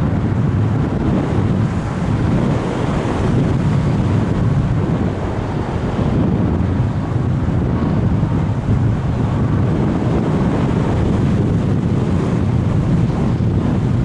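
Airflow rushing over the microphone of a Sony HDR-AS15 action camera riding on a Bird of Time RC sailplane in flight: a steady low rumble of wind noise, with no motor tone.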